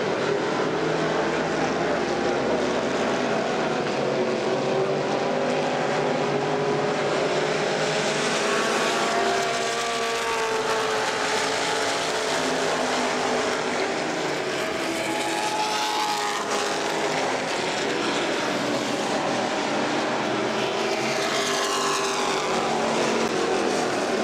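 Engines of several Super Street dirt-track stock cars racing in a close pack, running at high revs. Their pitch rises and falls as the cars go through the turns, and it sweeps about three times as cars pass by.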